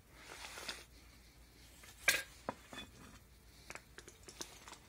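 Metal lower-unit gearcase of a 1982 Evinrude 35 HP outboard being pulled off the midsection: a brief scrape, then a sharp metallic clink about two seconds in and several lighter clicks and knocks after it.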